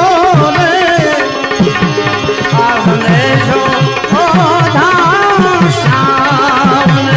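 Instrumental passage of a Gujarati santwani bhajan: tabla with bass strokes that slide in pitch, under a wavering melody from a lead instrument.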